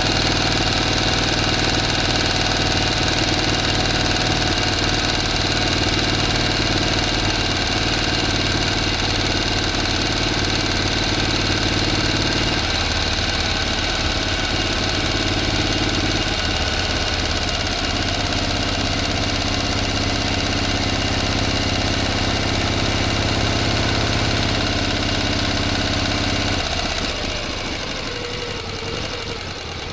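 A motor running steadily with a constant hum. Its low tone shifts a couple of times, then drops away near the end as the sound grows a little quieter.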